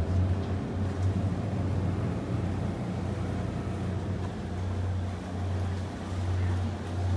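Ferry boat's engine running with a steady low drone that swells and eases in level, over a wash of wind and water noise.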